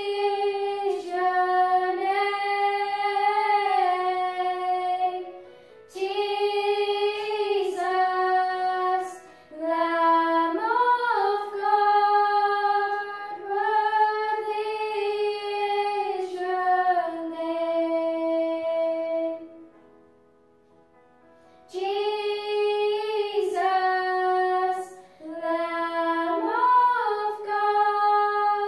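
Two young girls singing together, held notes in phrases with short breaths between, and a pause of about two seconds past the middle.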